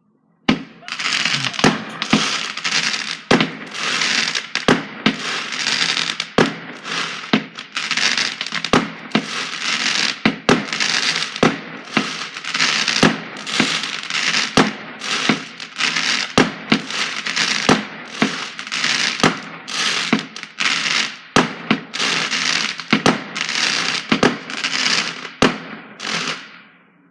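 Fireworks going off in a long rapid barrage: sharp bangs about one or two a second over continuous crackling and hissing. It starts abruptly and dies away shortly before the end.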